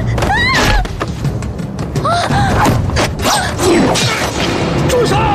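Staged fight sound effects: a rapid series of thuds and whacks from blows in a scuffle, over dramatic background music.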